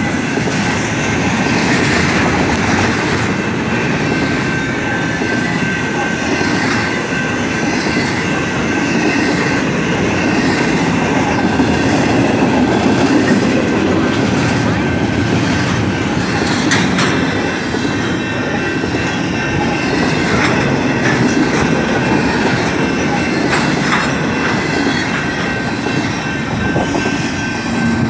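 BNSF intermodal freight train of container-loaded well cars passing close by: a steady rumble and clickety-clack of steel wheels over the rails, with a thin wheel squeal and a few sharp clanks in the second half.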